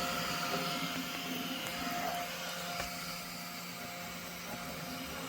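Flashforge Adventurer 5M 3D printer running a print: its fans and stepper motors make a steady whir with a few held tones.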